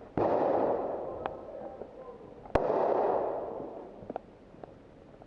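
Two loud bangs about two and a half seconds apart, each followed by a rushing hiss that dies away over about a second and a half, with a few short sharp cracks in between.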